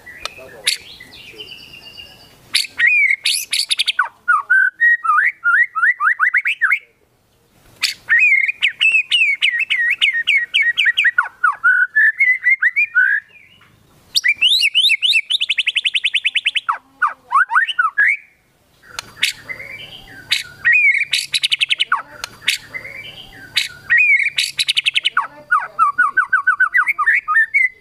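White-rumped shama (murai batu) in full song: loud, varied phrases of rapid repeated whistled notes and quick rising glides, each a few seconds long with brief pauses between, packed with borrowed phrases (isian).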